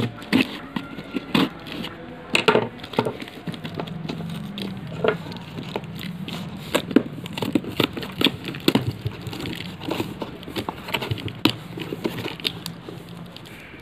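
Cardboard shipping box being opened by hand: a kitchen knife cutting along the packing tape, then tape and cardboard being torn and the flaps pulled open, giving irregular crackles, rips and sharp knocks.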